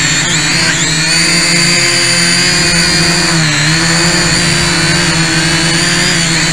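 Syma X5HW quadcopter's motors and propellers whining steadily, heard up close through a camera taped to the drone's body. The pitch dips briefly about half a second in and again about three and a half seconds in.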